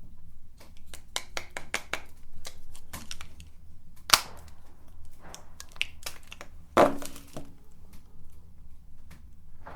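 Chocolate being snapped and handled by hand: a string of sharp cracks and clicks, with two louder knocks about four and seven seconds in.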